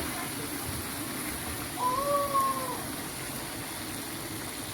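Vegetable sauce frying in a pot, a steady sizzle. About two seconds in, a single pitched call of just under a second rises and then falls over it.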